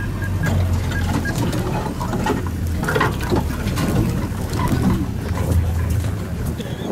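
Safari vehicle's engine running at low revs, a steady low hum with scattered clicks and crackles over it; the engine sound drops away near the end.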